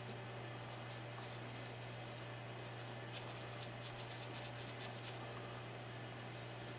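Faint scratching and rubbing as gloved hands scrub cleaning oil over a Taurus PT809 pistol slide to loosen old carbon, with many small ticks and a steady low hum underneath.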